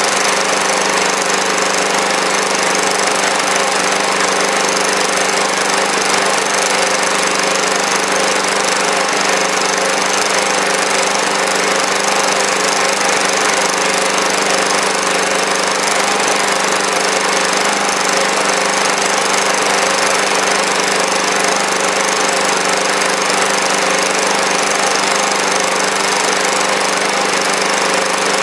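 Small engine running steadily at a fixed speed, in standard trim without HHO, driving a generator under a steady electrical load of about 350 watts. The note holds even, with no change in speed or loudness.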